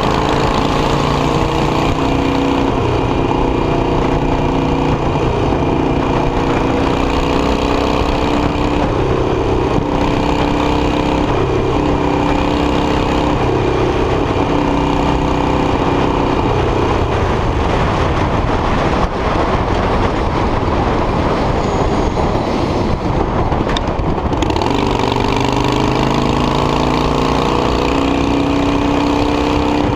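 Harley-Davidson Iron 883 Sportster's air-cooled V-twin running through an aftermarket Guerrilla exhaust, heard from the saddle while riding. Its pitch climbs at the start and rises again in a series of pulls. Past the middle it sinks for several seconds under wind and road noise, then climbs again near the end.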